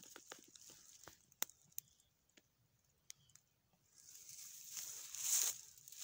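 Footsteps crunching through dry leaf litter and grass: scattered small crackles and snaps in the first two seconds, a short lull, then louder crunching steps from about four seconds in.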